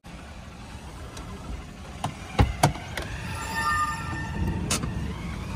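Sharp clicks and knocks from the door and fittings of a Mahindra Scorpio's cabin being handled, over a low steady rumble. The two loudest knocks come close together about two and a half seconds in.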